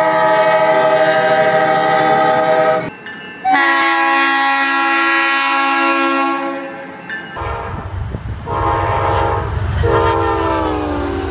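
Diesel locomotive horns in a run of separate cuts: a long steady horn chord that stops abruptly about three seconds in, a second long horn blast after a short gap, then a passing train's low engine rumble with two horn blasts that fall in pitch.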